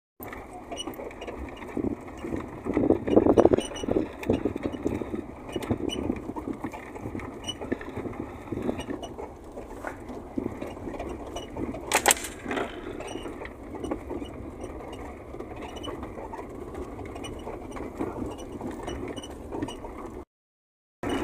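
Car interior while driving slowly over a rough dirt road: a steady running rumble with constant rattles and knocks from the body as it bumps over ruts, and one sharp knock about twelve seconds in. The sound cuts off abruptly near the end.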